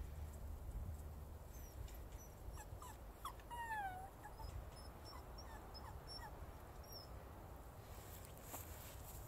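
A dog whining in a few short whines, the longest and clearest a falling whine about three and a half seconds in.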